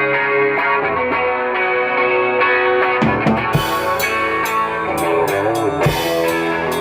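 Rock song intro: a guitar plays alone with a chorus-like shimmer, then drums and bass come in about three seconds in, with cymbals crashing through the rest.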